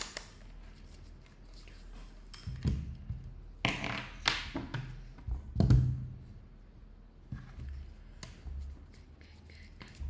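Scattered light taps, knocks and clicks of small objects being handled on a work surface: multimeter probes being set against a phone battery to measure its voltage. The loudest knocks come about four and a half and six seconds in.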